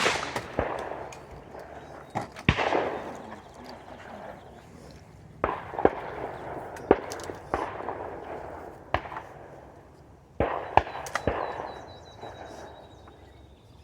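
Shotgun shots at clay targets: several loud reports, each trailing off in a long rolling echo, with sharper, shorter cracks in between.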